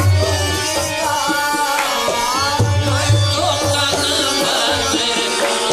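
Qawwali music: tabla drumming, with groups of deep bass strokes, under a sung melody that glides and bends in pitch.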